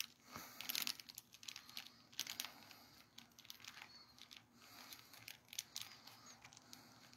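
Faint, irregular crinkling with scattered light clicks.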